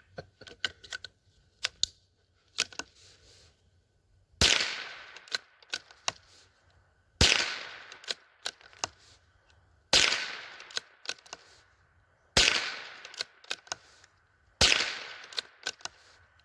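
Howa M1100 .22LR semi-automatic rifle firing CCI Mini-Mag rounds: five single shots spaced two to three seconds apart, each with a short echoing tail. Light clicks of handling come first, in the opening few seconds.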